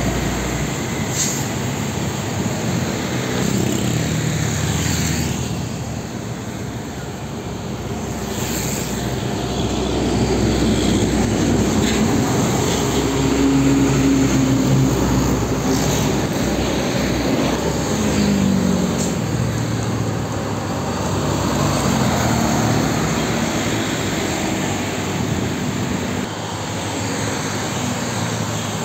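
Heavy diesel trucks, among them a Hino Ranger, driving past close by with motorcycles in the traffic. The engine drone swells and fades as each truck passes and is loudest about halfway through.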